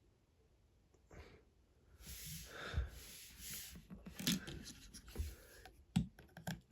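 Hands handling small plastic Lego pieces: rubbing and rustling with a few sharp clicks, starting about two seconds in.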